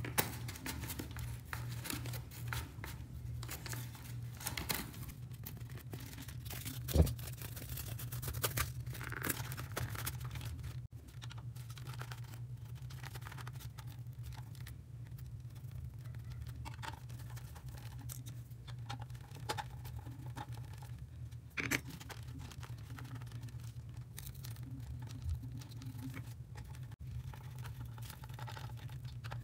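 Cardboard crinkling and scraping while a cardboard cover is pressed onto an electric insect killer's metal case and screwed down with a hand screwdriver: scattered light clicks and rustles, with one louder knock about seven seconds in, over a steady low hum.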